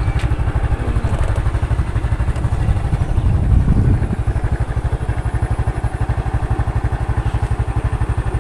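Motorcycle engine running with a steady, rapid low pulse as the bike rides along. It swells briefly about three to four seconds in, then settles slightly quieter.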